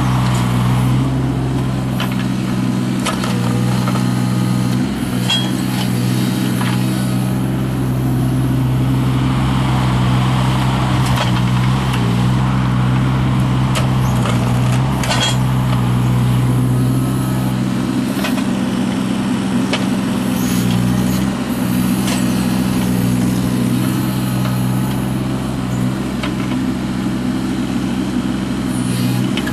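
John Deere 17D mini excavator's small diesel engine running steadily under working load, with the hum swelling and easing as it works, and scattered metallic clinks and knocks.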